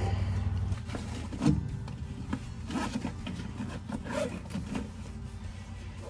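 Clunks and rattles of hand work on a tractor's three-point hitch, with one loud metal knock about a second and a half in, followed by scattered clicks and rustling as tools are handled.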